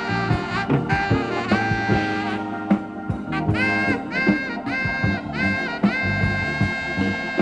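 Tenor saxophone playing a slow melody in long held notes that scoop up into pitch, over a live band with bass and drums.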